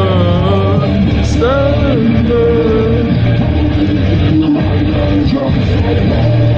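A song with singing and guitar playing at high volume through a JBL Xtreme 2 portable speaker, its two woofers pushing a heavy bass.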